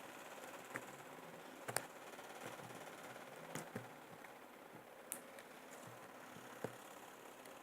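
Slime being handled, giving a few scattered sharp clicks and pops, about six in all, over a faint steady hum.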